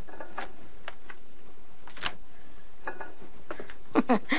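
Scattered light clicks and taps of a serving utensil against the ceramic plate and the crinkly Microcrisp wrap as barbecued ribs are lifted out and set on the plate. A sharper tap comes about two seconds in and a few quick ones near the end, over a steady background hiss.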